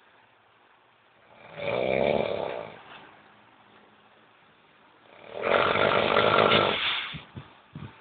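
A sleeping woman snoring: two loud snores about four seconds apart, the second longer, trailing off in a few short sputters.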